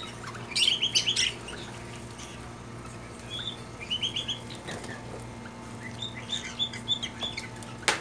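Caged cockatiels chirping in short runs of quick high notes, three bouts in all, over a steady low hum.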